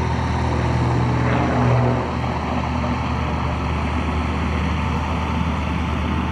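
XtremeAir XA-41 aerobatic plane's six-cylinder Lycoming engine and propeller droning steadily in a steep climb. The sound swells briefly about a second and a half in, then eases slightly.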